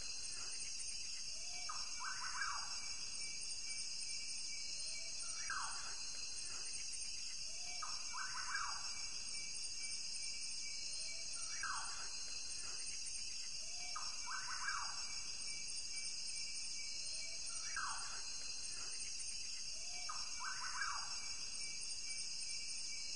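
Outdoor ambience: a steady high-pitched hiss with a short bird-like call that falls in pitch, repeating every three seconds or so at an even pace.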